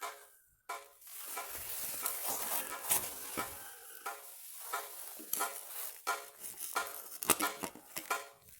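Irregular clicking, scraping and crackling noises rising from an underground drain over a steady hiss, the clicks coming thicker and louder in the second half. The source is unknown; the recorder takes it for something mechanical.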